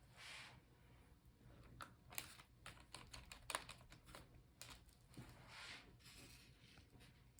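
Faint, scattered small clicks and taps of hands handling the laptop's plastic and metal parts during battery reinstallation, with a couple of soft rustling swells.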